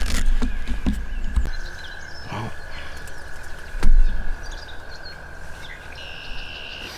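Outdoor field-edge ambience: a low rumbling noise for the first second and a half, then quieter with scattered songbird chirps over a steady high tone, broken by a single sharp thump about four seconds in.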